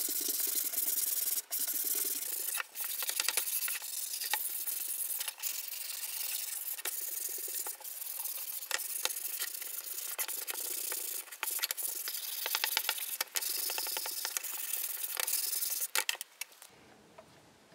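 Reclaimed pine frame pieces being hand-sanded with sandpaper: a steady back-and-forth rubbing in short strokes with brief pauses, stopping about a second before the end.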